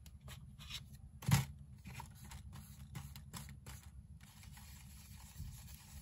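A makeup brush dabbing colour through a stencil onto a journal page: a run of light, irregular taps with one sharper tap about a second in. The taps stop about four seconds in.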